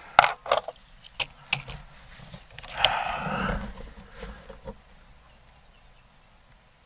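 Several sharp clicks and small knocks, then about a second of rustling and a few soft ticks, from the Hatsan Jet 2 .22 air pistol being handled between shots; no shot is fired.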